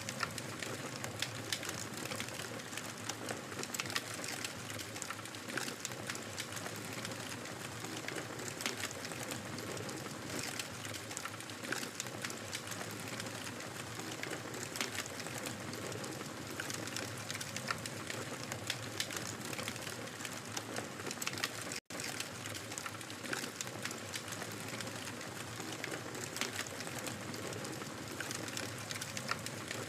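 Fire in a fireplace crackling: a steady hiss dotted with many sharp snaps and pops. The sound cuts out for an instant about two-thirds of the way through.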